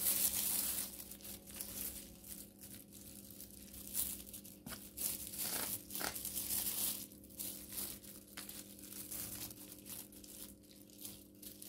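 Plastic food glove and disposable aluminium foil pan crinkling and rustling as a spoon spreads and levels macaroni and cheese in the pan, with irregular crackles and scrapes.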